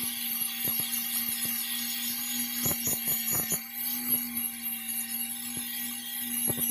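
A power tool running steadily with a constant hum, with irregular sharp clicks and a high hiss over it, as in work on a metal boat propeller.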